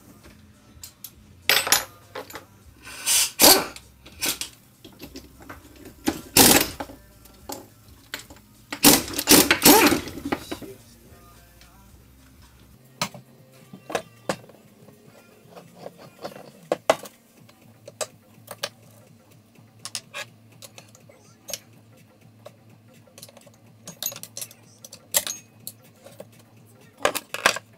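Metal clanks, knocks and clicks of hand tools and parts on a Suzuki DRZ400 engine as the generator rotor is worked off the crankshaft with a puller. The loudest knocks come in clusters in the first ten seconds, followed by lighter ticks and clinks.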